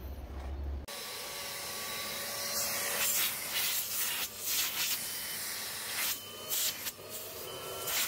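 Makita VC3012MX1 M Class wet/dry dust extraction vacuum running, a steady motor whine under the hiss of air rushing into the open hose cuff, starting about a second in. The rush of air swells and drops several times as a hand moves at the hose opening to feel the suction.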